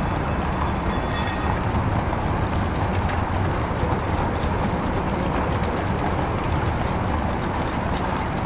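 Added street ambience for silent footage: a steady bustle of street traffic, with a small bell dinging twice, about half a second in and again a little past five seconds.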